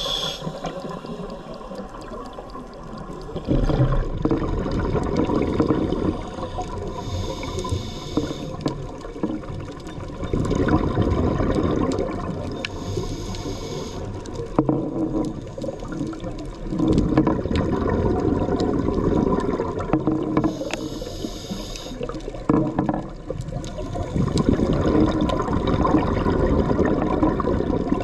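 Scuba diver breathing through a regulator underwater. Each inhale is a short hiss, about every six to seven seconds, and each is followed by a longer burst of exhaled bubbles.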